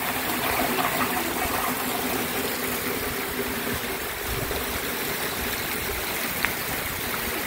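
Heavy rain falling steadily, with rainwater running in a shallow stream over the muddy ground.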